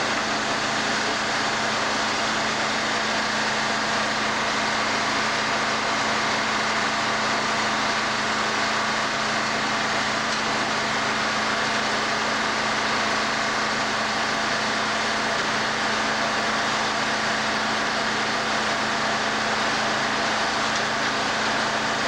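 Circular sawmill's engine and spinning head saw running steadily: an even mechanical hum with a constant low tone and no change in level.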